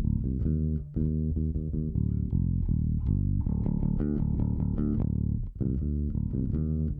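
Recorded bass guitar line playing back: a run of plucked, sustained notes in a steady groove with brief gaps between phrases. It runs through a Tegeler Audio Manufaktur Vari Tube compressor set to its slowest attack with the release turned faster.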